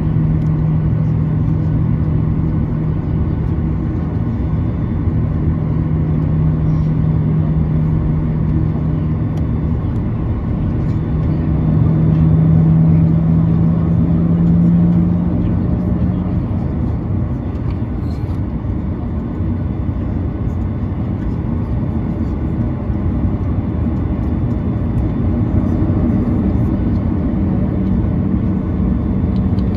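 Cabin noise inside a Boeing 737-800 on the taxiway with its CFM56 engines at idle: a steady rumble and hum. A low steady tone swells a little and then fades out about sixteen seconds in, around when the aircraft begins to taxi.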